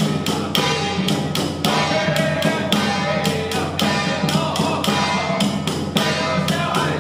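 Ceremonial temple music: a sustained melody over a steady percussion beat of about three to four sharp strokes a second.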